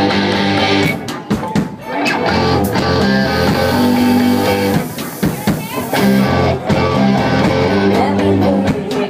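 Live rock band playing, with electric guitar over a drum kit keeping a steady beat.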